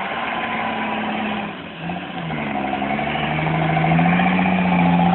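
Off-road 4x4's engine labouring up a steep muddy slope: the revs sag about a second and a half in, then build and hold higher and louder.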